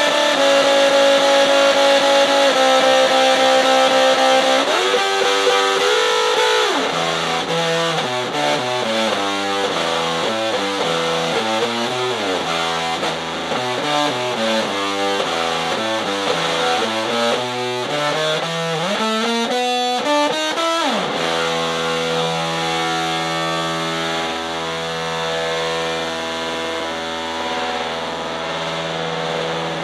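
Heavily distorted electric guitar played through five homemade Junkbox amps built from old cassette players, all at full volume together. Held chords with a pitch bend, a quick riff in the middle, then a long chord left ringing.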